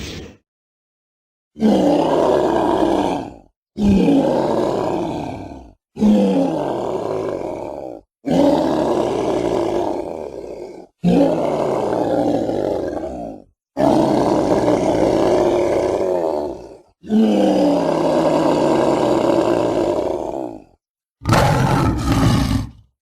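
Dinosaur roar sound effects for a Mapusaurus, played one after another: a string of roars about two to three seconds long, each with a deep call that falls in pitch, separated by short silences. Near the end comes a shorter, different sound in two quick parts.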